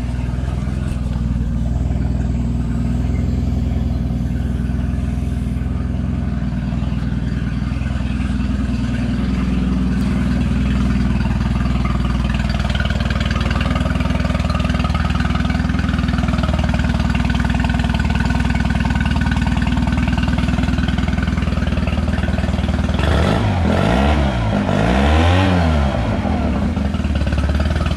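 Mercury 9.9 Pro Kicker EFI four-stroke outboard idling steadily on a garden-hose water supply, then briefly revved up and back down twice near the end.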